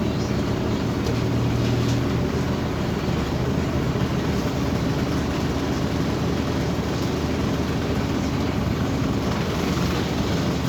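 Scania OmniCity city bus running, a steady low engine hum under even road and body noise.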